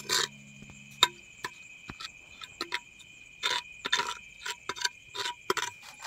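Steady, high-pitched insect chirring, typical of crickets, crossed by about a dozen short, irregular scraping strokes.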